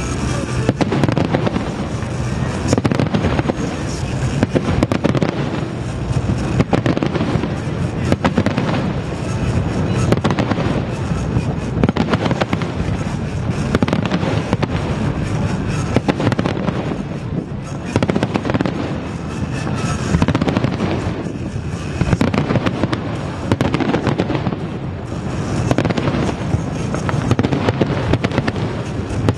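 Fireworks display: a dense, near-continuous barrage of aerial shells bursting, with rapid bangs and crackles.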